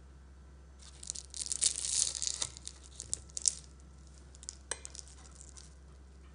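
Crisp, syrup-soaked phyllo layers of şöbiyet crackling and crunching as a fork and knife cut through them, for about two and a half seconds starting a second in. Near the end, a single sharp clink of metal cutlery on the ceramic plate.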